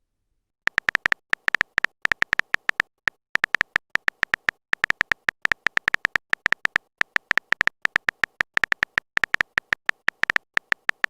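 Phone keyboard typing sound effect: rapid, irregular short clicks, each with a bright beep-like tone, starting just under a second in.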